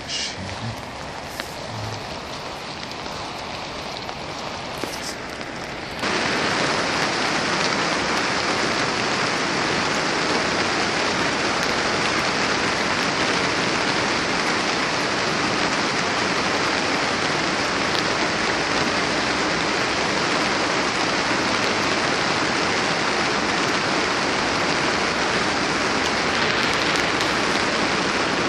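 Steady rain hiss, even and unbroken, which jumps abruptly louder about six seconds in and then holds steady.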